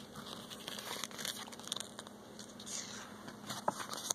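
Paper rustling with soft clicks as the pages of a picture book are handled and turned.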